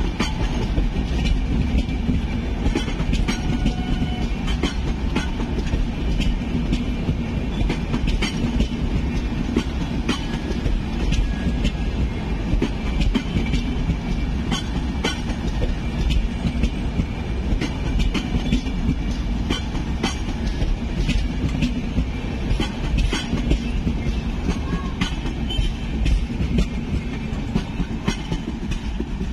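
Humsafar Express LHB passenger coaches rolling slowly past at close range: a steady rumble of wheels on rails with irregular clicks as the wheels cross rail joints.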